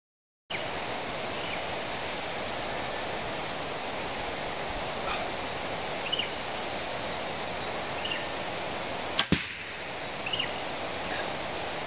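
A bow shot about nine seconds in: two sharp cracks close together, the string's release and, a moment later, the arrow striking the target. Under it, a steady hiss with a few faint bird chirps.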